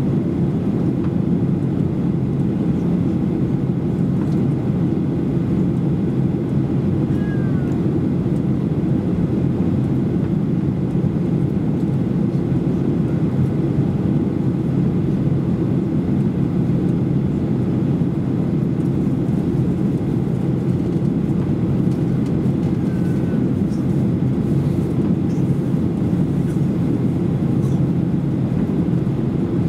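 Steady in-flight cabin noise of a Boeing 737-800: the even, low drone of its CFM56 engines and the rush of air over the fuselage, unchanging throughout.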